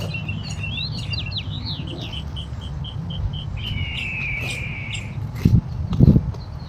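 A songbird singing: a run of chirps, a quick even trill, then a long buzzy note sliding down, over a low steady rumble. Near the end come a few dull thuds of a shovel blade chopping into soil.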